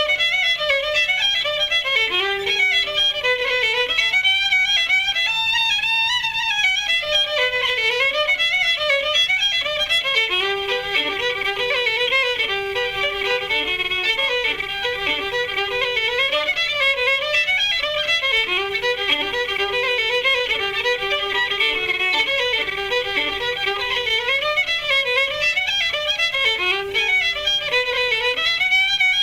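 Irish fiddle music: a solo fiddle playing a tune in quick runs of notes that rise and fall.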